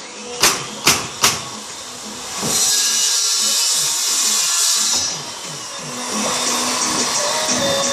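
Pneumatic nail gun firing three times, about half a second apart, driving nails through a siding board. Then a couple of seconds of hissing, scraping noise as the next siding board is slid against the wall into position.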